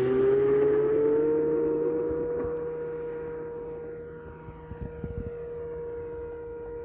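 Radio-controlled model Cessna 182's motor and propeller whining at takeoff power. The pitch rises over the first two seconds of the takeoff run and then holds steady, growing fainter as the plane climbs away. A few faint knocks come near the end.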